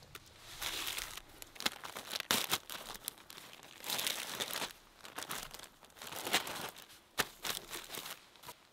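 Plastic food bags crinkling as they are handled: a tortilla package and zip-top bags being opened and moved about, in irregular rustling bursts.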